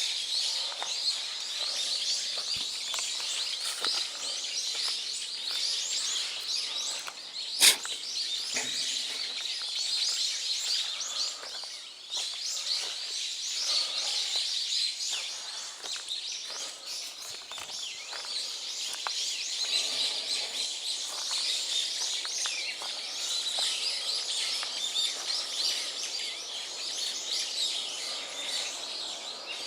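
A dense chorus of many small birds chirping and twittering without pause, with one sharp click about eight seconds in.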